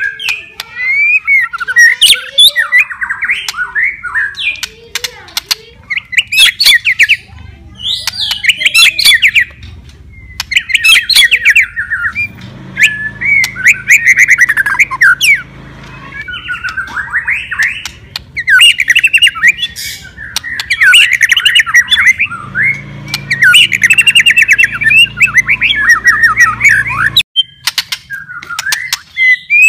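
White-rumped shama singing loudly: bursts of rapid, varied whistled phrases mixed with sharp crackling clicks, separated by short pauses.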